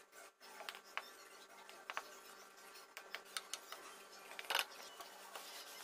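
Spoon scraping and tapping in a plastic bowl of dry powder as bath powder is scooped into a plastic jar: faint scattered clicks and scrapes, the loudest about four and a half seconds in.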